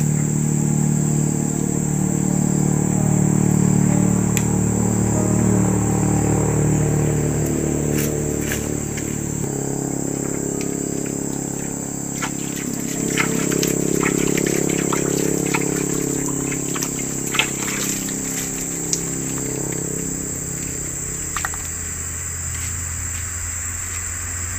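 Background music with sustained low notes over a steady, high-pitched drone of insects such as crickets, with a few faint light clicks scattered through.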